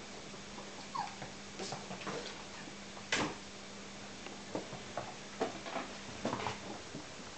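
Four-week-old Smooth Collie puppies playing: scattered light clicks and scuffles, a short squeak about a second in, and a louder knock about three seconds in.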